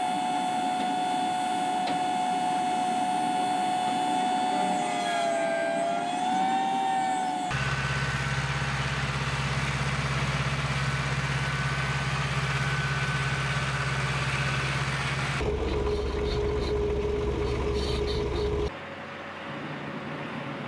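Farm machinery running in several abrupt cuts. First, a steady high whine, wavering in pitch for a moment, from a tractor working a large John Deere planter. Then a steady low tractor engine hum, and near the end a quieter truck engine.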